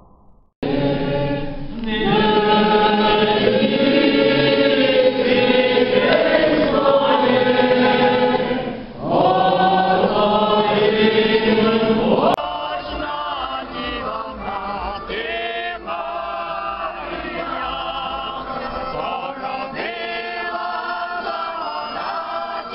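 A choir singing, heard in a church for the first half. About halfway through there is an abrupt cut to a thinner-sounding recording of group singing.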